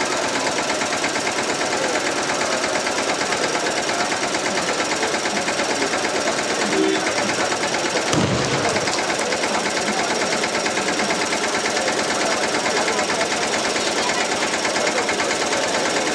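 Fast, continuous drumming that rattles on without a break, with one low thud about halfway through.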